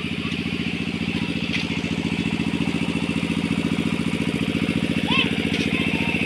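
Stationary diesel engine running steadily with a fast, even firing beat.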